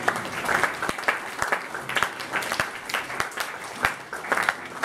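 A small group of people applauding, many quick irregular hand claps.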